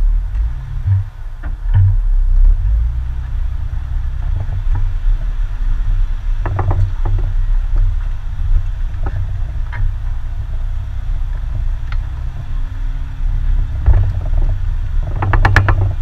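Jeep crawling up a rocky dirt trail at low speed, its engine and tires making a heavy, steady low rumble as picked up by a camera mounted on the hood, with a few knocks and rattles scattered through it.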